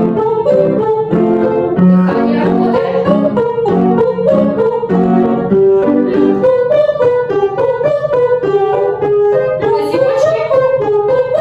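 Piano accompaniment playing quick notes, with a woman singing a vocal exercise over it.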